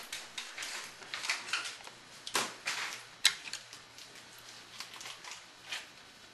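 Scattered light clicks and knocks, a few each second, with one sharp click about three seconds in.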